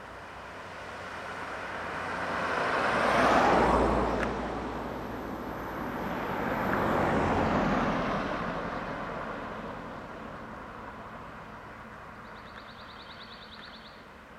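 Road traffic passing close by: a silver sedan's engine and tyre noise swells to a peak about three and a half seconds in and fades. A second vehicle passes around seven seconds in, and the noise dies away slowly toward the end.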